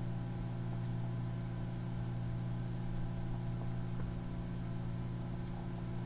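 Steady low electrical hum made of several even tones, the background noise of the recording setup, with a few faint ticks.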